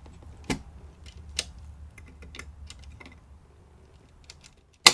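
Small plastic and metal clicks as gloved hands work the LGA1700 CPU socket's load plate and retention hardware on a Gigabyte Z690 Aero G motherboard, with one sharp, loud click near the end.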